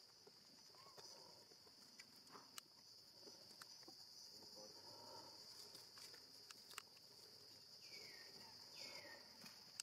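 Faint, steady high-pitched insect drone, with scattered soft clicks and two short falling squeaks near the end.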